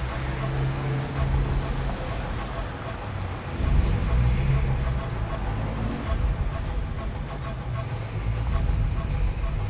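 Military cargo truck engine running as the truck drives past, a steady low rumble that gets louder about four seconds in.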